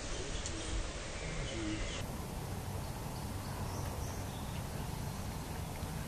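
Outdoor ambience: a steady low rumble with a few faint bird calls.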